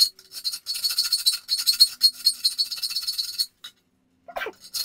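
Dremel rotary tool with a rotary burr grinding into a cast-aluminum oil pan, a high-pitched chattering rasp in spurts as the ends of cracks are opened out and radiused before welding. It stops about three and a half seconds in and starts again right at the end.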